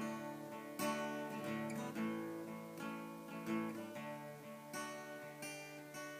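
Acoustic guitar strummed solo, a steady rhythm of chords starting right at the beginning: a song's instrumental intro.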